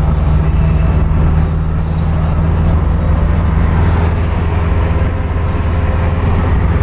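Exhaust of a Subaru BRZ's 2.0-litre flat-four engine running at a steady engine speed, a deep even drone. Four brief high hisses come and go over it.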